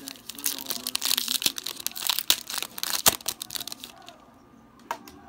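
Wrapper of a Playoff football card pack being torn open and crinkled by hand: a dense crackling for about three and a half seconds that then stops. A single sharp click comes near the end.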